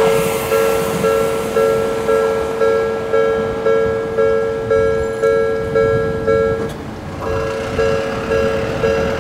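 Japanese railway level-crossing alarm ringing, a repeating electronic clang about twice a second, over a low rumble of passing rail traffic. The ringing breaks off briefly about seven seconds in, then starts again.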